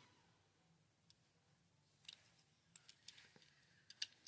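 Near silence, then from about two seconds in a few faint, sharp clicks and taps from handling a die-cast Hot Wheels car and its plastic-and-card package.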